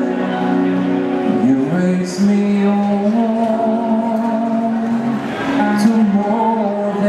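Man singing a slow ballad with long held notes into a microphone, amplified through a small portable speaker over an instrumental backing track.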